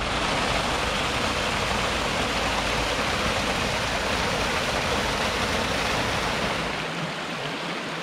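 Small waterfall cascades over rock ledges, water rushing steadily into pools, easing slightly near the end.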